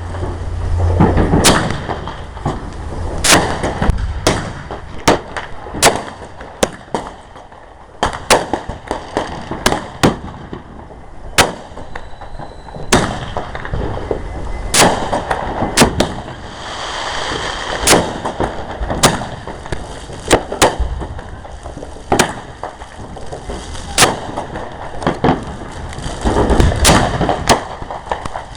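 Aerial fireworks bursting: a run of sharp, irregular bangs, sometimes several a second, with spells of crackling between them.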